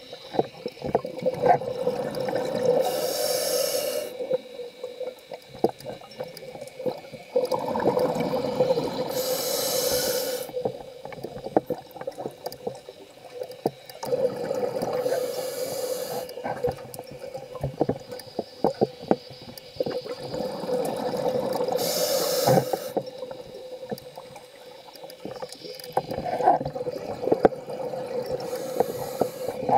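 A scuba diver breathing through a regulator underwater, about five breaths roughly six seconds apart. Each breath is a long rumbling gurgle of exhaled bubbles followed by a short high hiss of inhaled air.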